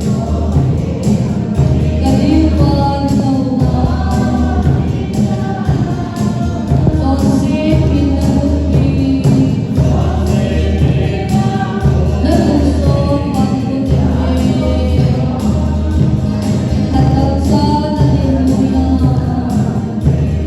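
Choral gospel-style singing over music with a steady beat and regular percussion.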